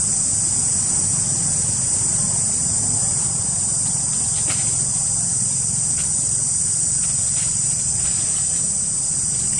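Steady, high-pitched insect chorus droning without a break over a low, even rumble, with a few faint clicks about halfway through.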